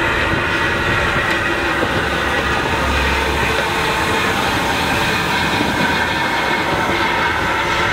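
Narrow-gauge NGG16 Garratt steam locomotive No. 143 standing in steam, with a steady hiss of steam escaping around its cylinders and running gear.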